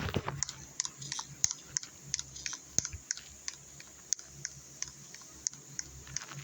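Irregular light clicks and taps, several a second, over a faint low hum.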